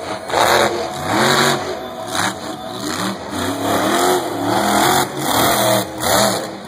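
Monster truck's supercharged V8 engine revving hard, rising and falling in pitch again and again in a series of quick blips of the throttle as the truck drives across the dirt.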